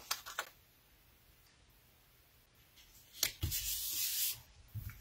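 Hand rubbing a paper sentiment panel down onto card stock to set the adhesive, a rubbing sound lasting about a second, starting about three seconds in. A few light paper clicks come just at the start.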